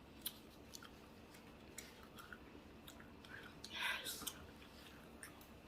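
Quiet chewing of a cheesesteak egg roll, with scattered small mouth clicks and smacks. A louder, brief noisy sound comes about four seconds in.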